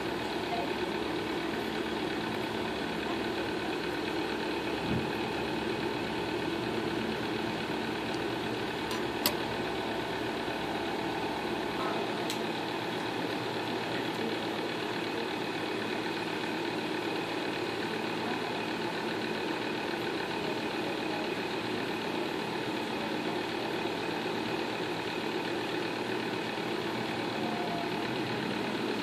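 A steady mechanical hum from a running motor, with a couple of faint clicks about five and nine seconds in.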